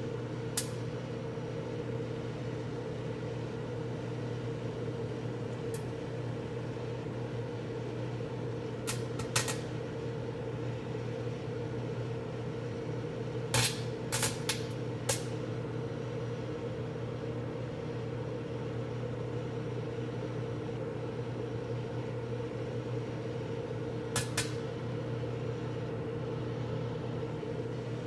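Microwave oven running with a steady hum, broken now and then by sharp snapping crackles as tinfoil inside arcs and sparks. The crackles come singly or in quick clusters, a few times over the stretch.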